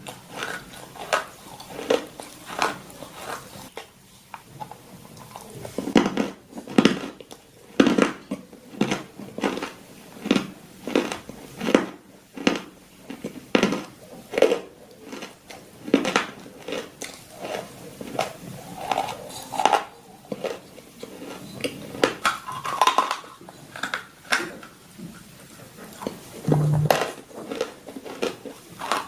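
A dog chewing crunchy food, a steady run of sharp crunches about two a second.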